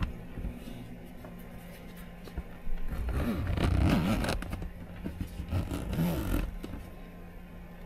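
Zipper on a YETI soft cooler being run along its lid in two bouts, about three seconds in and again near six seconds, with the cooler's fabric scraping as it is handled.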